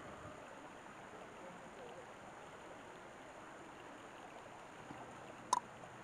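Shallow rocky stream trickling faintly and steadily over stones, with one sharp click near the end.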